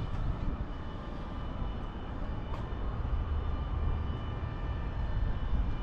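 Distant aircraft engine noise: a steady low rumble with a faint, even high whine over it.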